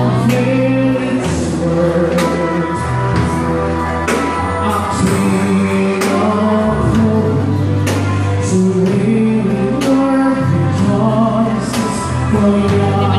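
Music with singing, a bass line and a steady drum beat.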